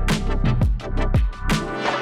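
Electronic music with heavy beats about twice a second, each with a deep falling bass sweep, over sustained synth tones.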